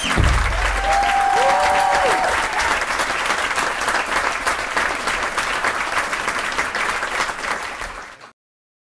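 Audience applauding and cheering, with a last low note of the music dying away in the first moment; the applause grows fainter and cuts off about eight seconds in.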